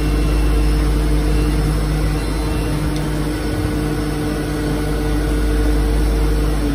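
The Twin Otter's two Pratt & Whitney PT6A turboprop engines running steadily, heard inside the cockpit: a deep rumble under a steady, even propeller drone.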